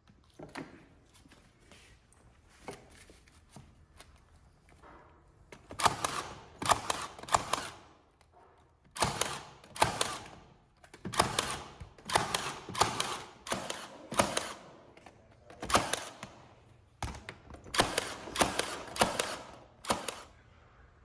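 16-gauge nail gun firing nails into plywood backing strips. From about six seconds in the shots come in quick clusters of two to four, one cluster every second or so, with a few fainter clicks before that.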